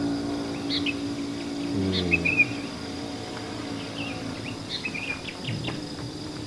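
Small birds chirping in short scattered calls over a steady high insect drone. A long held low hum, a single pitch, sounds for the first two seconds and bends away about two seconds in.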